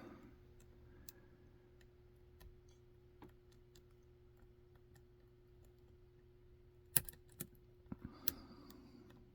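Light metallic clicks of a lock pick working the pins inside a DOM lock, faint and scattered, with a few sharper clicks about seven to eight seconds in.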